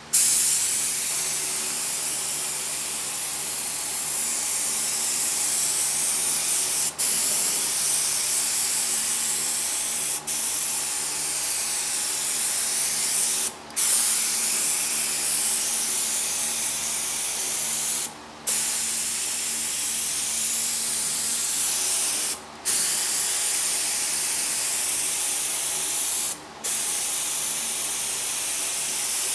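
Gravity-feed air spray gun spraying paint onto a VW Beetle chassis: a steady high hiss of air and atomised paint that stops briefly six times as the trigger is released between passes.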